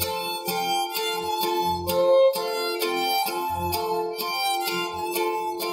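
Mariachi ensemble playing: a violin melody over vihuela and guitars strumming chords in a steady rhythm, about two strokes a second.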